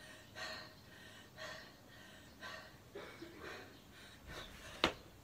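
A woman breathing hard and forcefully, about one breath a second, while holding two kettlebells in the rack position to recover between reps of a long-cycle set. Near the end there is a single sharp click of the kettlebells.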